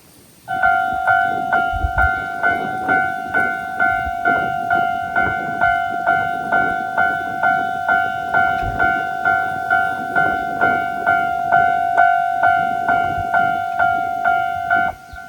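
Japanese railway level-crossing alarm ringing its repeated "kan-kan" chime at about two strikes a second. It starts about half a second in and drops sharply to a much lower volume near the end.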